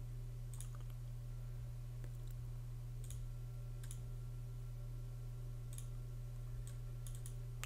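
Faint computer mouse clicks, about ten scattered single clicks, over a steady low hum.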